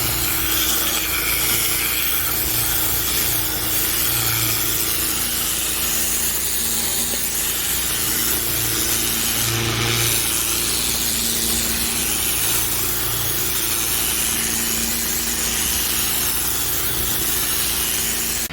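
Pressure washer spraying a hard surface: a steady, loud hiss of the water jet over the even hum of its engine-driven pump. It cuts off suddenly at the end.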